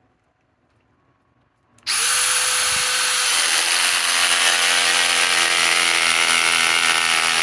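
DeWalt DCF870 hydraulic impact driver, running on a cold 5 amp PowerStack battery at about freezing, driving a fastener: it starts about two seconds in and runs steadily and loudly through the rest.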